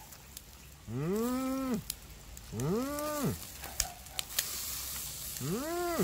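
A man making three drawn-out wordless hums, each rising in pitch, holding and falling, over the faint sizzle of fish grilling on a charcoal grill.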